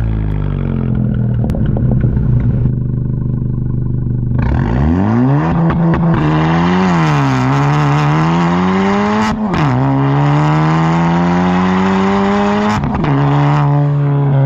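Honda Civic Si 1.5-litre turbo four-cylinder breathing through an aftermarket front pipe, downpipe and catback race muffler. The engine note falls away at first and runs rough and low for a few seconds. It then accelerates hard, rising in pitch, dropping at each of about three upshifts and climbing again.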